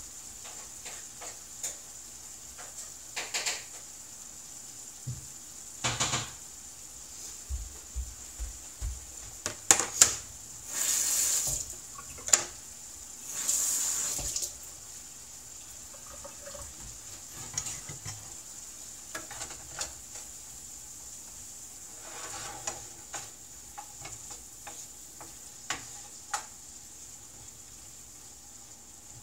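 Food sizzling steadily in a frying pan, with scattered clinks and knocks of dishes and utensils. About halfway through, a tap runs briefly twice, each time for about a second; near the end a wooden spatula stirs the pan.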